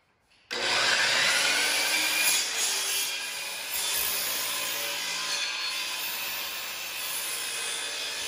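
Compound miter saw starting suddenly about half a second in and cutting through a length of crown molding, the motor and blade running steadily, loudest in the first couple of seconds.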